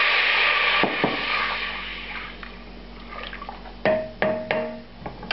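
White wine poured into a hot saucepan of browned butter and onions, hissing loudly as it hits the hot fat. The hiss drops off about a second in to a quieter sizzle, and near the end there are three sharp knocks with a short ring.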